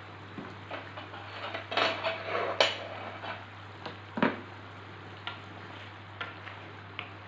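Kitchen utensils clattering with a few sharp knocks, loudest about two to three seconds in and again just after four seconds. Then a wooden spatula stirs thick fish curry in a pan, with light taps against the pan.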